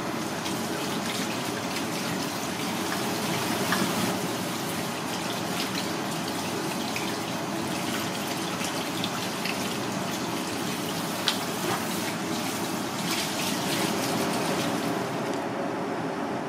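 Water spraying from a sink's spray-head faucet over hands rinsing raw clam meat: a steady hiss with splashing that stops near the end.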